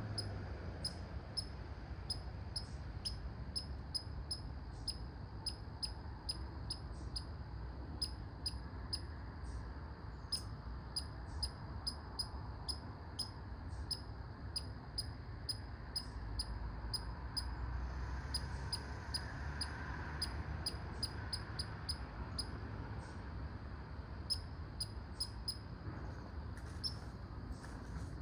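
American red squirrel barking: a long series of short, sharp, high-pitched calls at about two to three a second, broken by a few brief pauses.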